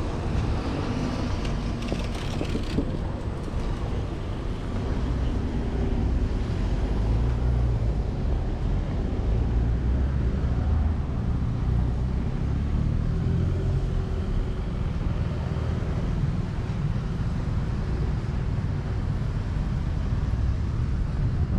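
City street traffic: cars and motorbikes passing on the road, with a steady low rumble that grows a little louder about six seconds in.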